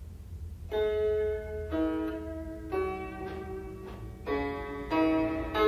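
Chinese zheng with steel strings played solo: single plucked notes about once a second, each ringing on with a bright, harpsichord-like tone. The piece begins about a second in, over a steady low hum.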